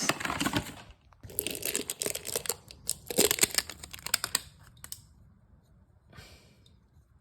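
Packaging of a new oil filter being torn open and crinkled: dense crackling and rustling for about five seconds, then one short rustle about a second later.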